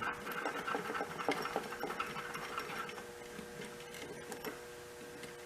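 Small metallic clicks and ticks of a wrench working a 1/2-inch nut, coming thick at first and thinning out after about three seconds. A faint steady hum runs underneath.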